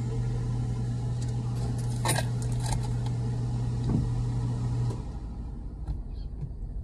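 Steady low hum inside a car, from its idling engine or ventilation, that cuts off suddenly about five seconds in. There are a few sharp clicks and rustles along with it, around the second, third and fourth seconds.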